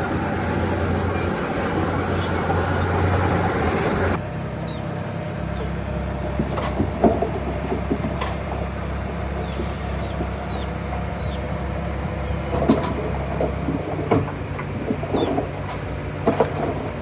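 A heavy earthmoving machine's diesel engine running steadily, with scattered sharp clanks and knocks of rock and steel. The sound changes abruptly about four seconds in.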